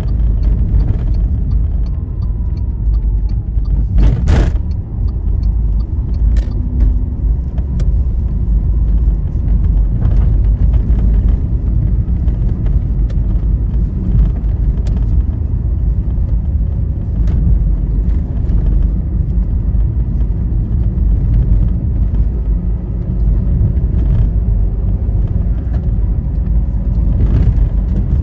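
Steady low rumble of road and engine noise from a moving vehicle on a highway, with a brief sharp knock about four seconds in and a few faint clicks.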